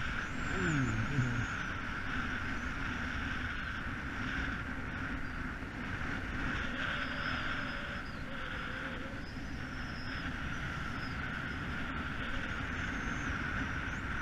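Steady outdoor background noise with a constant mid-pitched hum, and a brief falling tone about a second in.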